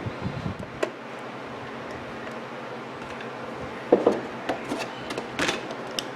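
A few small clicks and knocks of clock parts being handled, about one second in and a few more near the end.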